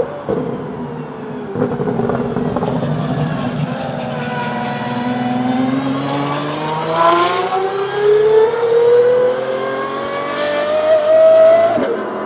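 De Tomaso P72 prototype's 6.3-litre naturally aspirated V12 accelerating, its pitch climbing steadily for several seconds. The pitch falls sharply near the end.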